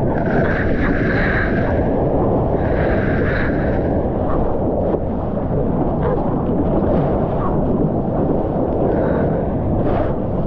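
Water rushing and splashing close around a surfer's GoPro as he paddles through small waves, heard as a steady, heavy rumble of water and wind on the camera microphone.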